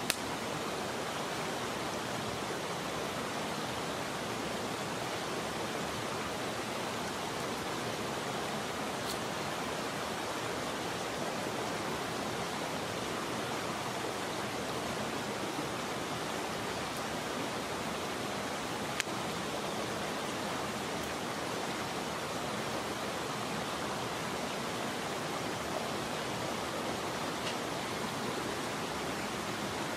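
Headwater mountain stream rushing steadily, with a few isolated sharp clicks.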